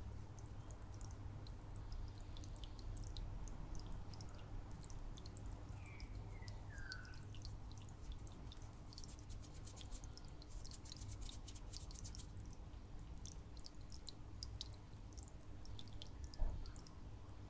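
Faint dripping and trickling of aquarium water over a low steady hum. A short falling chirp comes about six seconds in, and a single knock near the end.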